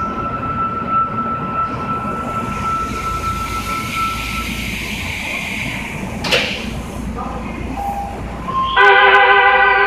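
Subway train standing at an underground station platform, with a steady background of station and train noise and a thin steady beep tone through the first half. Near the end a loud signal of several tones at once starts suddenly, the departure signal before the train pulls out.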